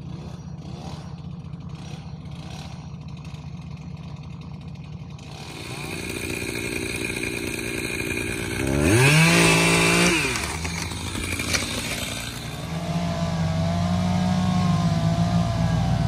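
Gas chainsaw running, revved up to full throttle for about a second midway and then let back down. Near the end a heavier engine, the pickup truck's, comes up and holds with a slightly wavering pitch.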